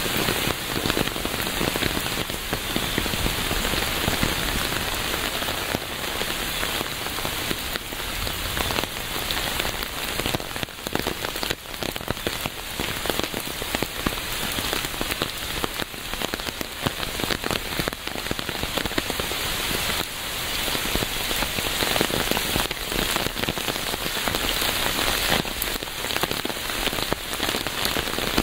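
Steady rain falling on a surface, a dense patter of many drops at an even level.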